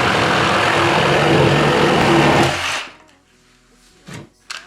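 Makita JR105DZ cordless reciprocating saw cutting through a thick wooden board held unsupported, running steadily and then stopping abruptly about three seconds in. A few light knocks follow near the end.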